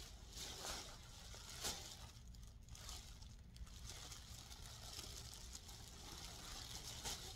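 Clear plastic garment wrap crinkling faintly as the dress inside it is handled, with a few sharper crackles, the clearest about a second and a half in and near the end.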